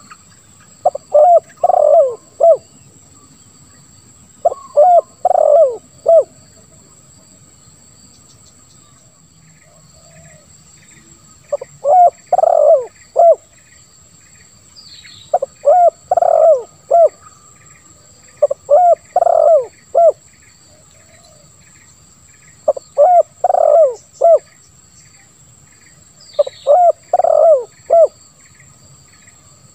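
Spotted dove (tekukur) cooing: phrases of several low coos, repeated eight times with short pauses between. It is the deep, rough-voiced 'lambung kuk 1' song that keepers play to prompt silent doves to call.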